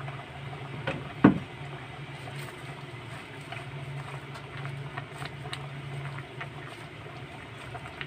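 Vegetable broth simmering in an enamel pot on a gas stove, with faint crackling and rustling as handfuls of leafy greens are pushed in by hand, over a steady low hum. A single sharp knock about a second in.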